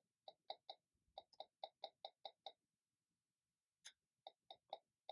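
A run of faint, short clicks, about four to five a second, stopping for a second or so in the middle and then resuming.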